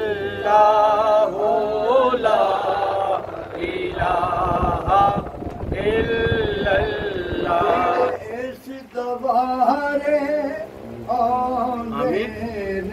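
Men's voices singing a devotional Sufi chant in Urdu/Punjabi, long held melodic phrases with short breaks between them.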